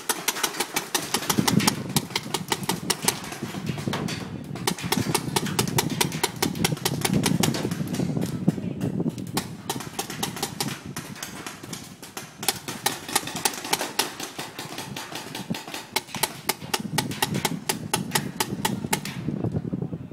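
Paintball markers firing rapidly in long strings of sharp pops, many shots a second, with a brief pause about four seconds in, stopping shortly before the end.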